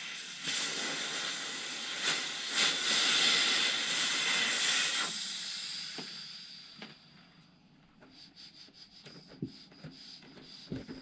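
A steady hiss of rushing air for about five seconds that drops off sharply, trails away, and is followed by faint clicks of handling parts.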